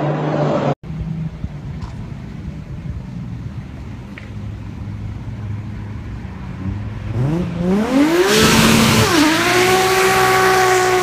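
A car with a Toyota JZ-series straight-six runs low and steady at first. Near the end it revs hard with a steeply rising pitch and a loud rasping stretch, dips briefly, then holds high revs steadily as it accelerates away. Before that, the tail of another engine at high revs is cut off short.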